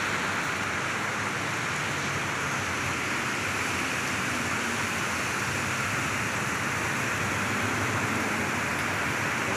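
Rain falling steadily, an even, unbroken hiss.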